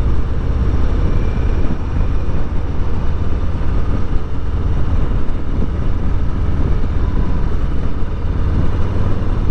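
Harley-Davidson Street Bob's Milwaukee-Eight 114 V-twin running steadily while riding, with a heavy low rumble of wind and road noise on the microphone.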